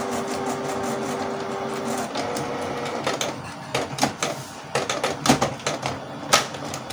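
Canon iP2770 inkjet printer's motor whirring as the printer pulls its paper through on powering down, a steady whir for about two seconds and a shorter, higher one after it. Then a run of sharp clicks and knocks from the paper-feed and carriage mechanism.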